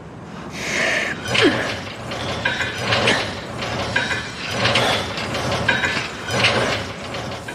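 Gym cable pulldown machine worked through repetitions: the weight stack and pulley cable clatter in a repeating rhythm, about one stroke a second.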